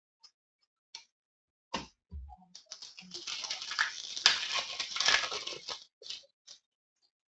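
Trading cards and their pack wrapper being handled: a few light clicks, then about three seconds of dense crinkling and rustling, with a couple of short rustles near the end.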